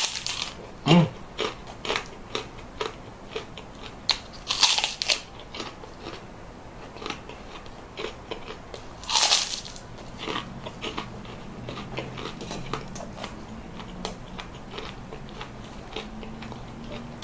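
Small Indonesian crackers (kerupuk) being bitten and chewed close to the microphone. Three loud crisp crunches, near the start, about five seconds in and about nine seconds in, with softer crackling chews between and after.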